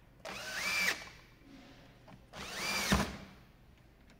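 Cordless drill-driver running in two short bursts, each rising in pitch and then dropping as it stops, driving in the screws that hold a chainsaw's recoil starter cover. The second burst ends with a sharp knock.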